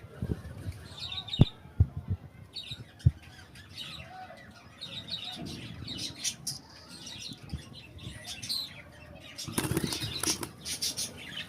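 Lovebirds flapping their wings, with short high chirps. There are a few sharp knocks in the first three seconds and a denser flurry of fluttering about ten seconds in.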